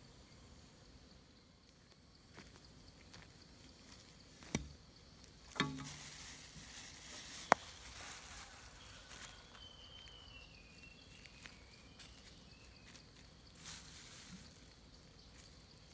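Quiet outdoor ambience with a faint steady high tone, broken by three sharp clicks or knocks in the first half and a short wavering high chirp about ten seconds in.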